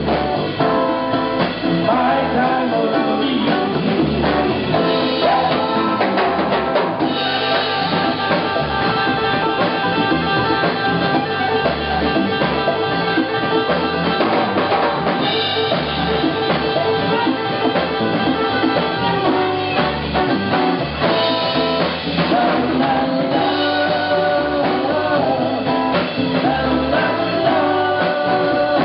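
Live band music: an amplified acoustic-electric ukulele played over drum kit, hand drums and bass, with a male voice singing in parts.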